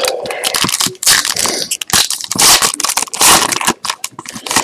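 Foil trading-card pack being torn open and crinkled by hand, a run of loud, irregular rustling bursts.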